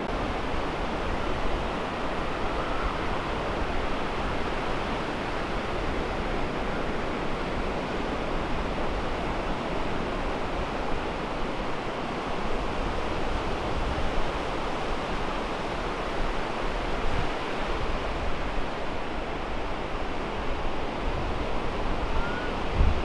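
Ocean surf washing steadily onto the beach and around pier pilings.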